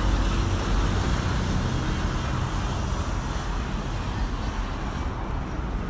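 Steady outdoor rumble of road traffic, an even noise heaviest in the low end, with no distinct events.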